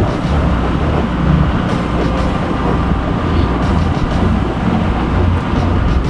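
Wind buffeting the microphone in the cockpit of a sailboat under way: a loud, uneven low rumble that rises and falls in gusts, over a steady hiss.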